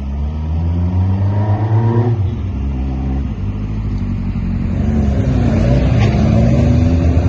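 Hillman Imp race car's four-cylinder engine accelerating hard: revs climb, drop sharply at an upshift about two seconds in, then climb again through the next gear.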